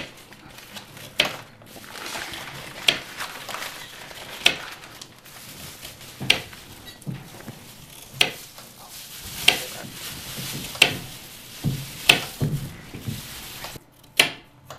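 Kitchen knives knocking on cutting boards as vegetables are sliced: single sharp knocks about every one to two seconds, over a steady hiss.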